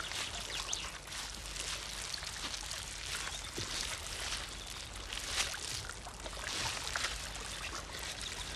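Water trickling and splashing among wet rocks and seaweed, with many small crackling splashes.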